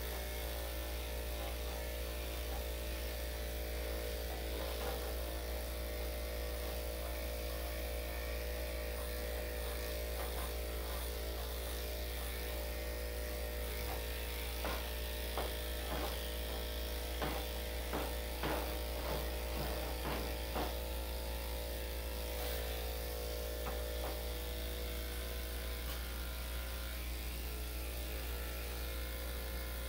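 Electric dog clippers fitted with a #5 blade running with a steady hum, clipping a dog's coat. A series of short light knocks comes about halfway through.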